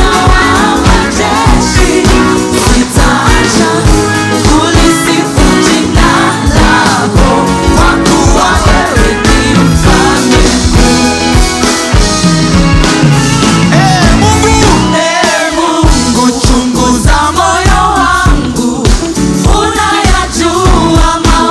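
Gospel worship music: voices singing over a band with a steady beat.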